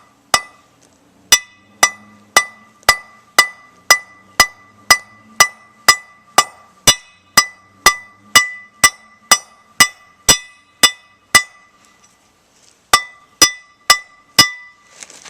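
Hammer blows crimping a single ferrule onto 5/64 snare cable, about two strikes a second, each blow leaving a short ring. The hammering stops briefly near the end, then four more strikes follow.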